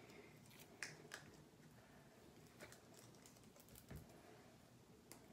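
Near silence with a few faint, scattered clicks as old slime is handled and pushed into a mixing bowl.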